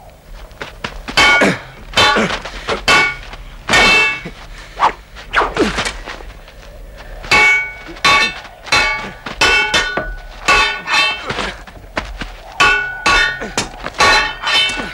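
Swords clashing again and again in a duel: sharp metal clangs with a ringing tail, about two dozen strikes at an uneven pace with brief lulls between flurries.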